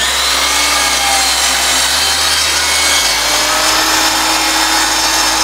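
DeWalt miter saw running steadily at full speed, its blade cutting across the end of a glued-up cutting-board panel made of strips of mixed wood species.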